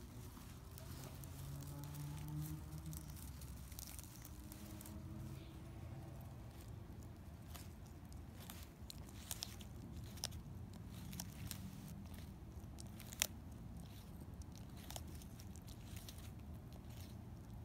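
Sulcata tortoise biting and chewing a prickly pear cactus pad: faint, irregular crunching clicks, with one sharp crunch about thirteen seconds in.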